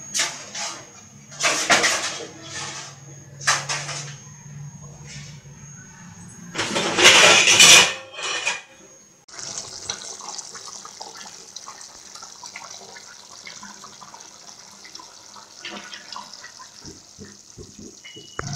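Fish curry cooking in a pan. A few loud splashing rushes come in the first half, the loudest about seven seconds in. After that it settles into a steady bubbling hiss with small pops as the curry simmers.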